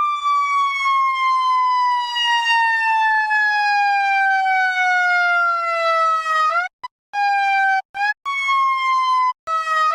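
Electronic siren in wail mode: one steady, buzzy tone falling slowly in pitch for about six and a half seconds. It then jumps back up and falls again, broken several times by short, sudden cut-outs.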